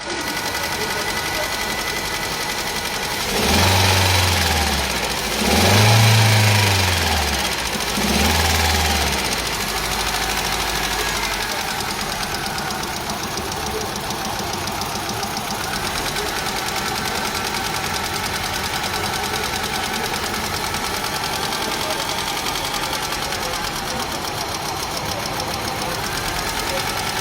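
Car engine running at idle while being checked for a misfire, revved three times a few seconds in, each rev rising and falling back, then settling to a steady idle.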